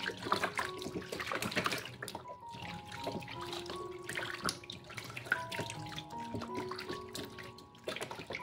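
Water splashing and sloshing in a plastic tub as hands wash a kitten in it, busiest in the first couple of seconds, over background music of held notes.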